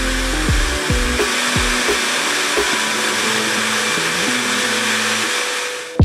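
Laifen Swift high-speed hair dryer blowing, a steady rushing hiss of air that cuts off abruptly near the end.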